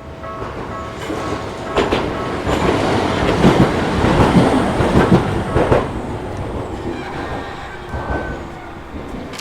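Tokyu Setagaya Line train passing over a level crossing, its wheels clacking over the rail joints, loudest a couple of seconds in and fading toward the end. The crossing's warning bell is still ringing faintly at the start.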